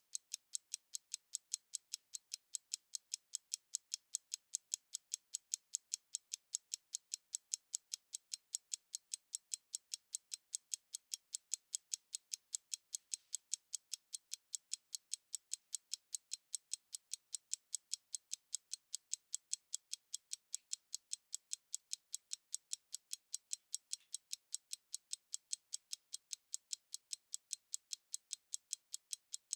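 Analog stopwatch ticking steadily, with rapid, even, crisp ticks about five a second.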